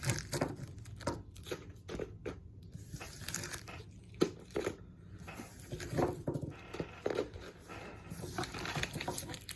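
Plastic candy packaging crinkling and rustling in short, irregular bouts as candy packs are handled and pushed into a basket.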